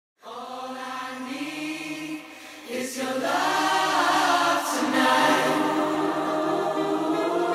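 Soundtrack music with a choir singing sustained notes. It starts out of silence just after the beginning, dips briefly, and swells louder about three seconds in.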